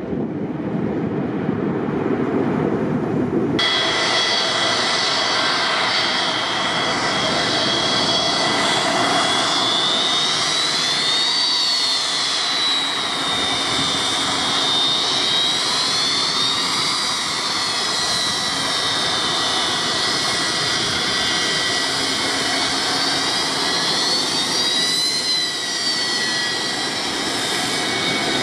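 A departing twin-engined business jet gives a deep jet rumble for the first few seconds. About three and a half seconds in the sound switches suddenly to a taxiing Boeing 727 freighter, its Pratt & Whitney JT8D turbofans whining high, the whine slowly rising and falling in pitch.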